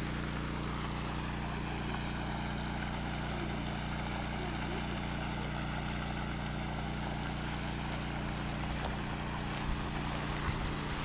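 Engine-driven water pump running at a steady speed, its hum constant throughout, with water gushing out of the discharge hose and splashing into the shallow flood.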